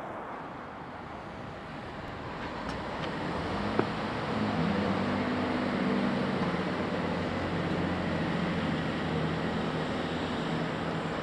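Diesel engines of a Networker Turbo multiple unit running, a steady low hum that grows louder about four seconds in as the unit takes power to depart. A single sharp click comes just before the rise.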